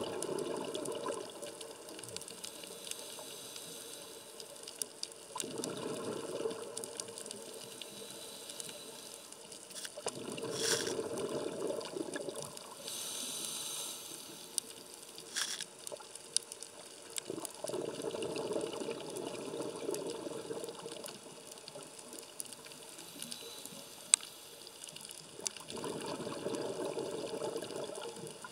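A scuba diver's regulator heard underwater, with exhaled air bubbling out in five bursts about five to eight seconds apart and quieter stretches between them.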